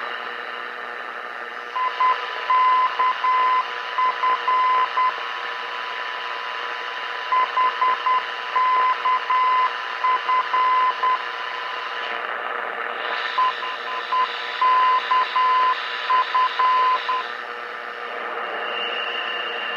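Longwave beacon's Morse code identifier, a single high keyed tone sent three times over, received on a 1970 Radio Shack DX-160 receiver over a constant hiss of band noise.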